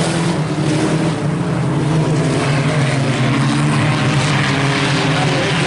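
Several IMCA Sport Compact race cars' four-cylinder engines running hard at racing speed, a steady loud blend of engine notes.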